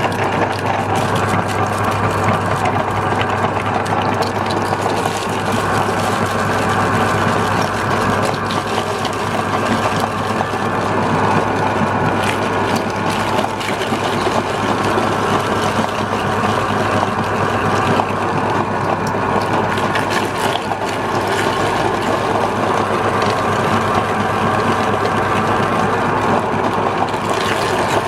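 Electric meat grinder running steadily, its motor humming and gears grinding, with scattered short cracks as snacks are ground through it.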